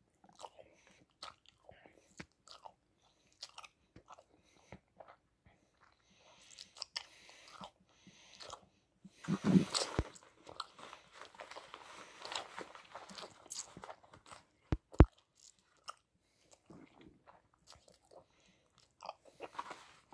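Chewing gum being chewed close to the microphone: irregular wet smacks and clicks of the mouth. There is a louder stretch about halfway through and two sharp clicks a few seconds later.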